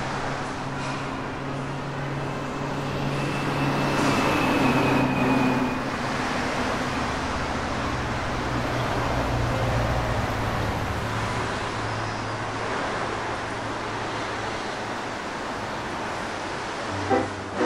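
City street traffic: the steady hum of vehicles running and passing, a little louder about four to five seconds in.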